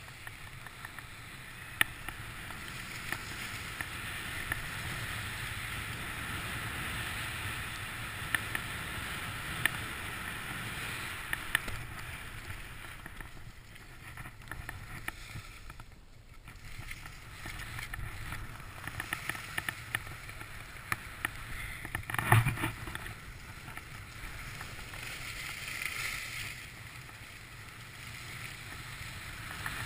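Skis sliding through soft snow, a steady hiss that swells and fades with the turns, with scattered light clicks and one sharp knock about two-thirds of the way through.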